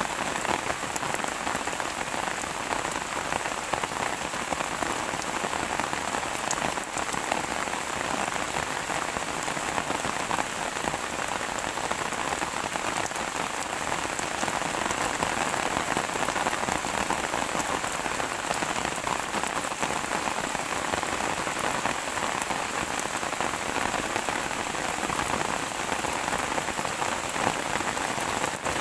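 Steady rain falling: a dense, even hiss of drops with many small ticks of individual drops hitting a surface.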